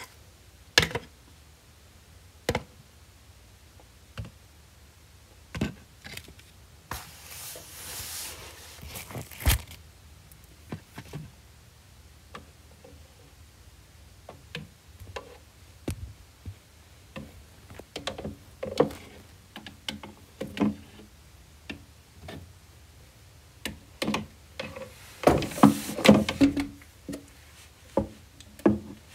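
Plastic toy figurines and playset pieces being handled and set down: scattered light knocks and clicks, a short stretch of rustling about a third of the way in, and a quick flurry of knocks near the end.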